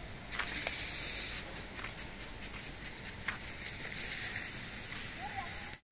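Steady hiss of water spraying from stadium pitch sprinklers, with a few faint short chirps over it.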